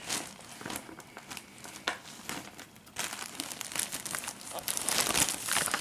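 Plastic bag crinkling and rustling as a boxed fireworks cake is handled on it: a few scattered crackles at first, then steady rustling from about three seconds in, getting louder.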